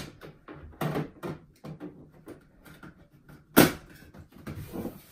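Knocks and rustles of hands handling a 3D printer's plastic casing and packing, with one sharp, much louder knock about three and a half seconds in.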